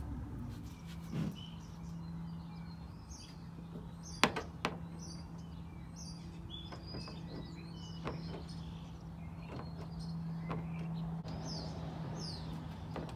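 Birds chirping in the background over a steady low hum, with a few sharp knocks, the loudest about four seconds in.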